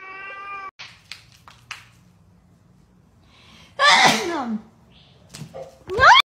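A sneeze about four seconds in, the loudest sound, with a falling pitch. Just before the end a cat's meow begins with a rising pitch.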